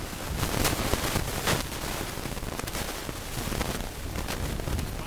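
Wind buffeting the microphone in gusts, over the low steady hum of a motorboat's engine.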